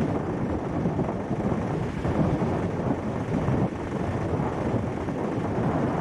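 Wind buffeting the microphone over waves washing onto a sandy beach: a steady, gusty rumble.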